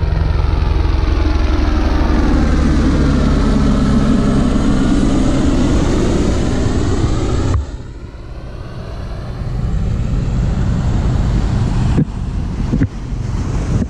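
Helicopter flying low overhead: a loud, steady rotor and engine sound that swirls and shifts as it passes, cut off abruptly about seven and a half seconds in. After that, wind on the microphone and surf washing on the beach, with two short clicks near the end.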